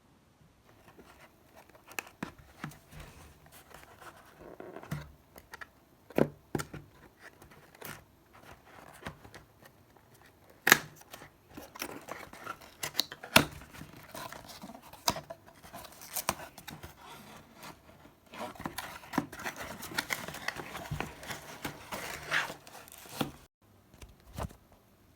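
A new mouse's packaging being opened and handled: crinkling and tearing with scattered sharp clicks and knocks, and a denser stretch of crinkling in the second half.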